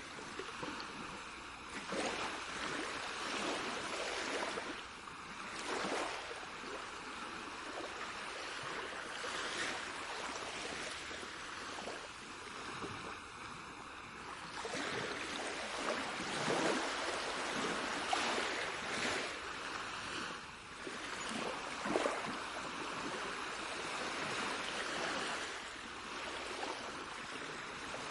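Rushing water, a steady wash that swells and eases every few seconds.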